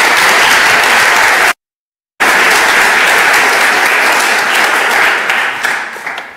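Audience applauding, a dense clatter of many hands clapping. It breaks off completely for well under a second about a second and a half in, then resumes and dies away near the end.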